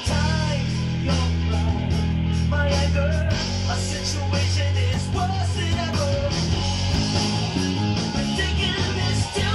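Electric bass plucked with the fingers along to a rock band recording with singing. The bass holds long low notes for about the first three seconds, then moves through quicker changing notes.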